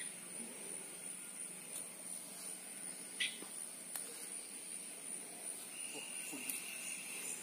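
Insects chirring steadily at a high pitch, with a second, lower steady tone joining near the end and a few faint clicks.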